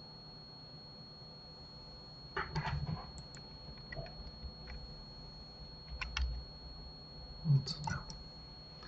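Computer keyboard key presses and mouse clicks, in a few short clusters: Blender shortcut keys being used.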